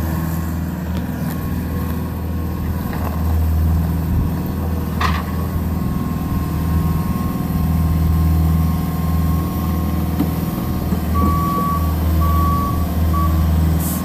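Bobcat skid steer's diesel engine running steadily as the loader works, with its backup alarm giving a few short beeps near the end.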